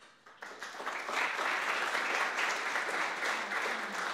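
Audience applauding, building up over the first second, holding steady, then starting to die down near the end.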